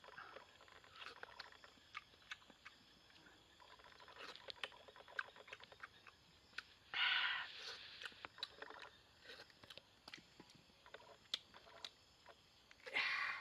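A person biting and chewing fruit: many small wet clicks, with two louder crunching bites, about seven seconds in and again near the end.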